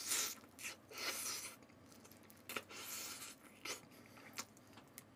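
Close-up chewing of a piece of crispy fried chicken in gochujang sauce: a series of short, soft crunching and mouth sounds about a second apart.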